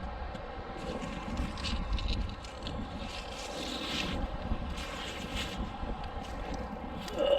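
Wind buffeting the microphone as a steady low rumble, with a few brief rustling, scraping handling noises over it.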